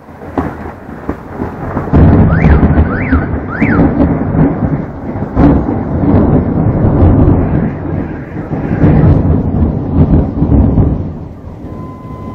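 Thunder rolling: a long, deep rumble that swells about two seconds in, surges several times, and dies down near the end.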